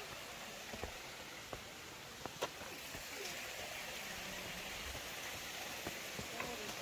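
A stream running steadily, with scattered sharp steps or taps of feet on the stone path.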